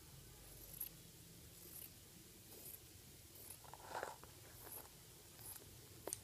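Scissors cutting lining fabric: faint, repeated snips about once a second, one louder one about four seconds in.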